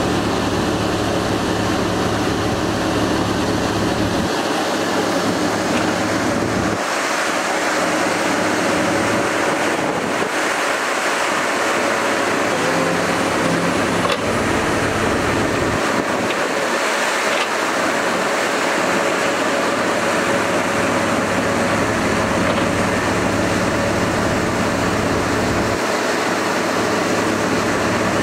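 Ponsse Bear forestry harvester's diesel engine running steadily while its hydraulic crane moves the harvester head, with a faint hydraulic whine. The deep engine hum drops away and returns several times as the crane works.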